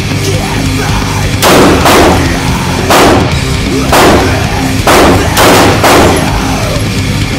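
Pistol shots at an indoor range, about seven of them, spaced roughly half a second to a second apart. Loud heavy electronic/metal music plays underneath.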